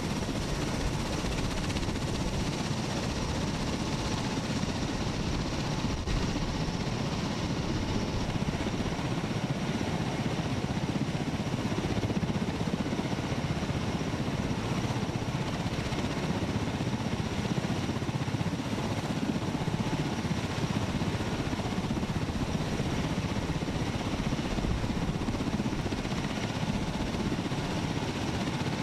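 MV-22 Osprey tiltrotor aircraft running, a steady rotor and engine drone with a fast low pulsing from the blades.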